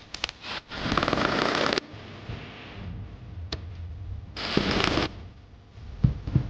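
Hand woodworking noise on a wooden bench: a few clicks, then a loud rasping stroke lasting about a second and a shorter one about four seconds in. Two low knocks come near the end.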